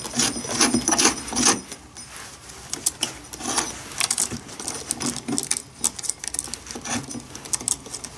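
Saw chain rattling and clicking against the guide bar and drive sprocket of a battery chainsaw as it is fitted by hand: an irregular run of small metallic clinks, thickest in the first second or so.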